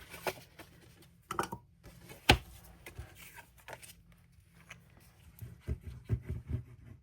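Paper-crafting tools and supplies handled on a tabletop: a sharp click a little after two seconds in, and a quick run of light taps and knocks near the end.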